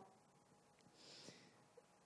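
Near silence: room tone, with a faint breath into a handheld microphone about a second in.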